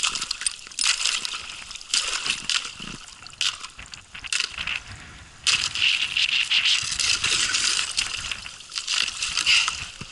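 Thin ice being broken up: irregular brittle crackling and tinkling of ice shards, with water sloshing.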